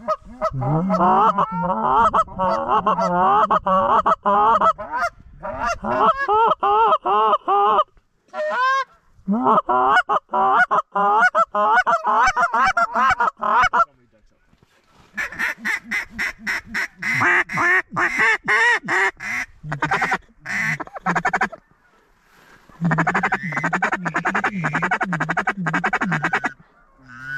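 Canada goose calls blown in rapid, loud runs of honks and clucks, with short breaks between the runs and a faster, sharper run of clucks about halfway through.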